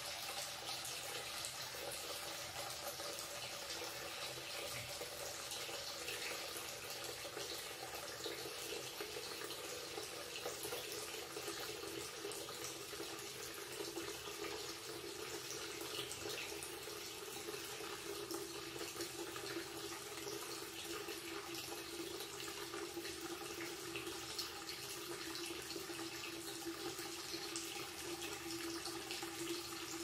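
Tap water pouring in a steady stream from a wall-mounted spout into a ceramic washbasin and draining away: an even, unbroken splashing rush. A low tone under it grows stronger in the second half.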